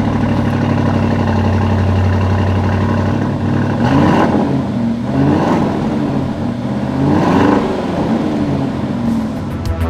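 A 2020 Audi SQ7's 500 hp V8 running at a steady fast idle just after starting, then revved up and let fall back several times.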